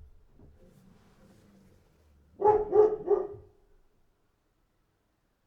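A dog barking three times in quick succession, about two and a half seconds in, after a faint low rumble. The barks are mid-pitched.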